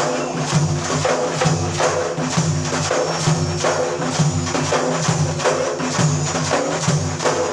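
Instrumental interlude of Iraqi folk lament music: frame-drum or tambourine-like percussion beating a steady rhythm under a sustained melodic accompaniment.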